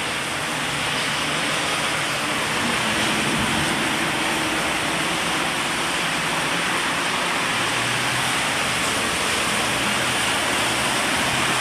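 Heavy rain falling in a steady, even hiss. A faint low hum comes in about two-thirds of the way through.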